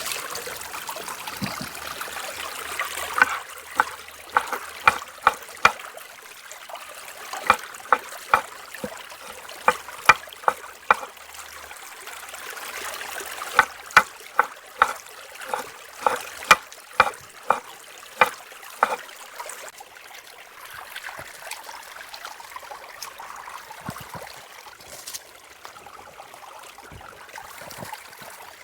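Steady rush of a flowing river, with runs of sharp knocks about two a second, each run five to eight strokes long; the knocks are the loudest sounds.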